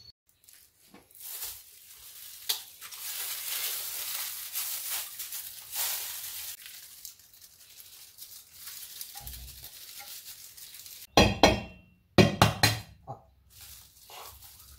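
Food being prepared in a stainless steel mixing bowl. Rustling and scraping come first as shredded chicken and canned tuna go in. Late on there is a quick run of sharp knocks and clinks against the metal bowl, the loudest sound here.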